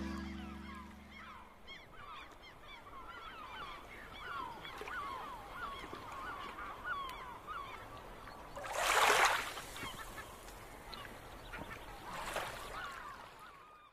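The music's last notes die away, then a dense chorus of short, hooked chirping animal calls. A loud rushing whoosh comes about nine seconds in and a softer one near the end.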